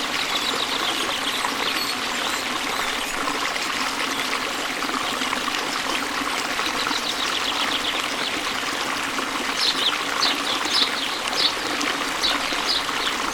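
Running water of a stream trickling and splashing steadily. Birds chirp over it, with a run of short high chirps in the last few seconds.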